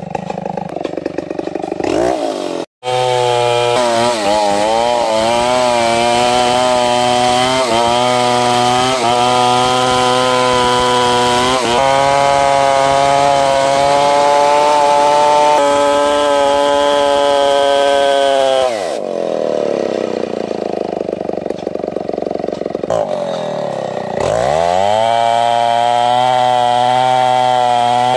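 Stihl 070 two-stroke chainsaw at full throttle ripping lengthwise through ulin ironwood, its engine pitch wavering under the load of the cut. About 19 s in the engine drops back to idle for several seconds, then revs up again and resumes cutting.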